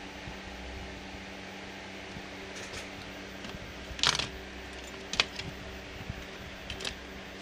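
A few light clicks and clatters of hard laptop parts being handled on a workbench, the loudest about four seconds in, over a steady background hum.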